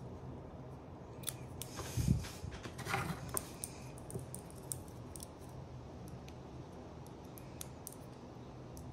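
Handling noise from a diving watch and its strap: light clicks and rubbing as the strap is held to the case and the watch is set into its box. There is a dull knock about two seconds in and a cluster of scrapes and clicks about a second later, then scattered light ticks.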